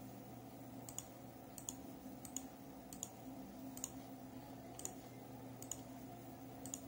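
Mouse button clicks, about eight short, sharp clicks roughly one a second at an uneven pace, as end devices are picked and placed on screen. A faint low steady hum runs underneath.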